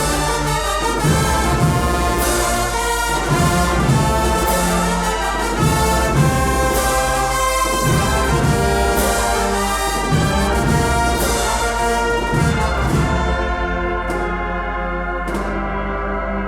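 Agrupación musical brass band of trumpets, trombones and drums playing a Spanish Holy Week processional march in full chords over a steady drumbeat. Near the end the high crashes drop away and the playing eases off a little.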